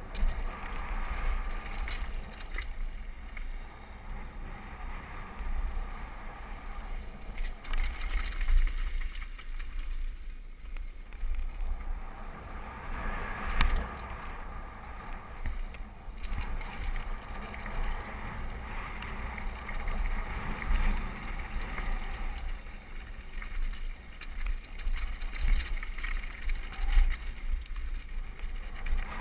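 Wind buffeting the microphone of a camera riding a downhill mountain bike at speed, with the tyres rolling over dirt and loose gravel. Scattered knocks and rattles come from the bike as it hits bumps.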